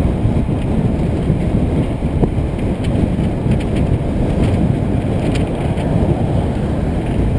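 Wind rushing over the microphone of a camera riding on a moving bicycle, a steady low rumble, with a few faint ticks in the middle.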